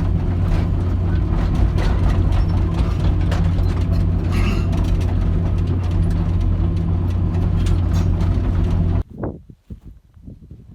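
1998 Hitachi EX230LC-5 excavator's diesel engine running steadily, with small clicks and rattles throughout, typical of the machine travelling on its steel tracks. The sound cuts off abruptly about nine seconds in.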